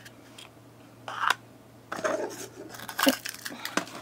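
Hands handling small plastic items and packaging. A short rustle comes about a second in, then a run of light clicks, taps and rustles, with one sharper click about three seconds in.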